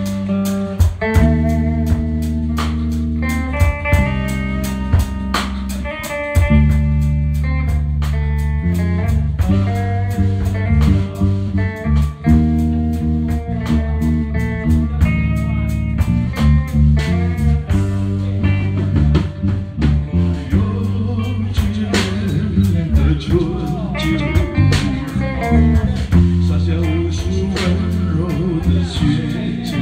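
Band music: a guitar melody over electric bass and a drum kit keeping a steady beat.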